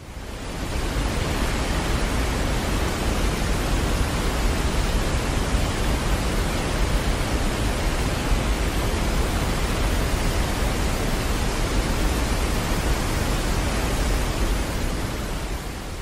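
Steady rush of a large waterfall's falling water, an even noise with no rhythm or tones. It fades in over the first second and fades down near the end.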